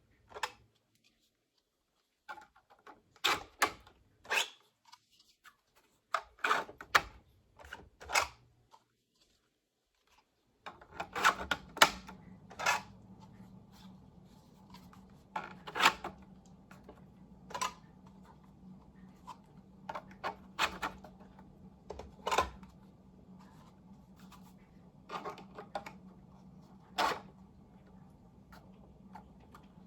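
Irregular sharp clicks and knocks of horn pieces being handled and pushed into the 12-port side of an Edan Mini 2T22 model siren. A steady low hum comes in about a third of the way through and stays under the clicks.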